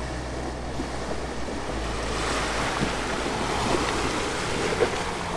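A Ford Ranger ute driving through a shallow rocky creek, its tyres throwing up rushing, splashing water that swells louder as it passes close by, with a low engine hum underneath.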